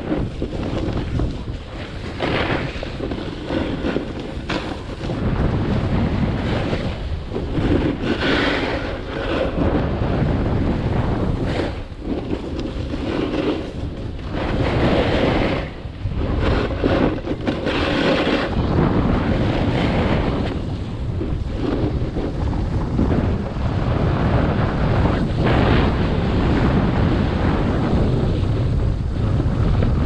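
Wind buffeting a chest- or helmet-mounted GoPro Hero 7 Black's microphone during a fast snowboard descent, with the board's edges scraping over the snow in louder surges as it carves turns, notably about 8, 15 and 18 seconds in.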